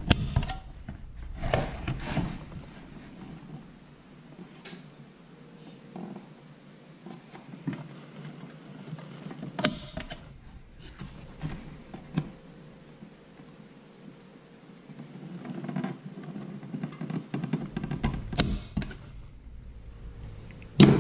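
Spring-loaded automatic center punch snapping as it marks hole positions through a blue-tape template on a hydrofoil plate: a few sharp snaps several seconds apart, with quieter knocks and rustling from handling the plate in its cardboard box.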